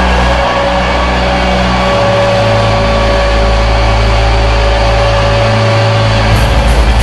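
Background rock music: a sustained, low droning chord held steady, with a regular drum beat coming in near the end.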